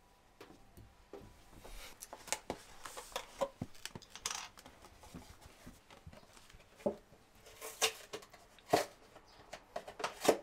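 Scattered light clicks and knocks of glasses and a milk carton being handled on a steel kitchen counter, with a few sharper taps near the end.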